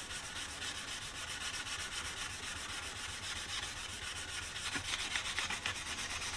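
Fine 0000 steel wool rubbed over a T-bevel wetted with PB Blaster to lift grime: a steady scratchy rubbing, a little louder near the end.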